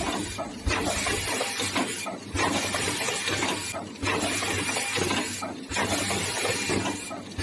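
Smart card milling and ACF module-embedding machine running in production: a dense mechanical clatter with hiss over a low hum, going in a repeating cycle whose noise dips briefly about every second and a half to two seconds.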